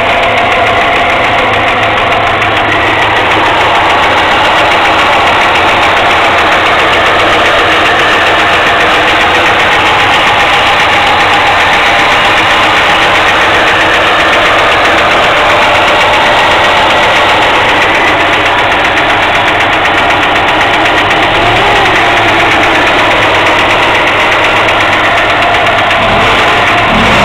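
VAZ car engine running steadily at idle with a rapid metallic knock from the valve cover area, near the oil filler cap. The owner says this knock is usually heard on a cold engine.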